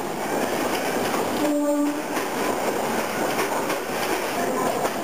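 Electric suburban local train running past at close range, with the steady noise of wheels on rails. A short horn blast sounds about one and a half seconds in.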